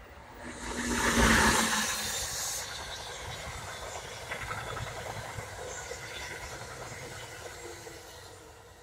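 Amtrak electric locomotive passing at speed close by, with a sudden loud rush of noise about a second in. Its stainless-steel passenger coaches follow, rolling past with steady wheel-on-rail noise that fades near the end.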